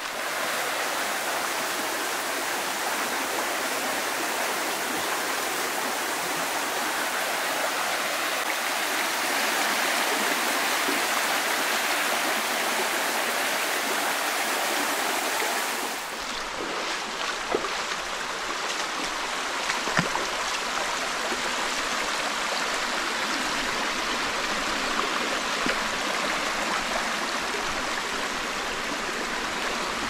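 Shallow rocky stream running steadily, water rushing and trickling over stones. A few sharp clicks stand out in the second half, the loudest about two-thirds of the way through.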